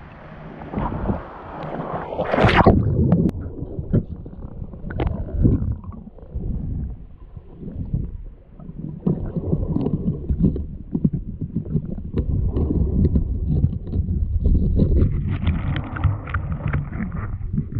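Water heard from a diver's camera: a splash about two and a half seconds in as the diver goes under, then muffled underwater rumbling and water movement with scattered clicks.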